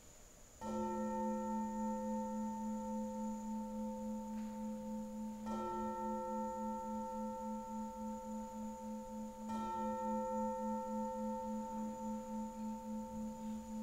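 A liturgical bowl-shaped gong is struck three times, about five and then four seconds apart. Each stroke rings on with a slow pulsing beat in its low tone, marking the blessing with the monstrance.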